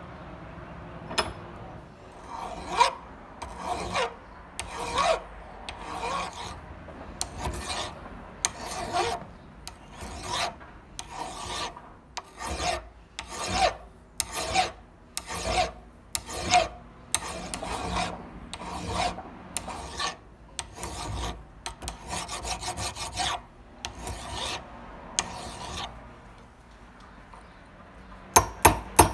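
Flat hand file rasping in slow back-and-forth strokes, about one a second, across the rusty cast-iron body of an old hand punch held in a vise, with a quicker run of short strokes partway through. Near the end a run of quick, sharp metal taps begins: a hammer striking a pin punch held on a pivot of the punch.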